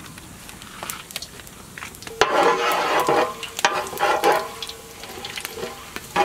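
Whole spices sizzling and crackling in hot oil and ghee in a large aluminium pot. From about two seconds in, a perforated metal ladle stirs and scrapes across the bottom of the pot, louder than the frying.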